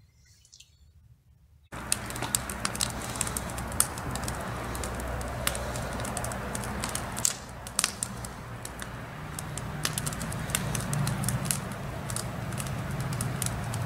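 Campfire crackling in a fire pit: many sharp irregular pops over a steady low hum. It starts suddenly about two seconds in, after near silence.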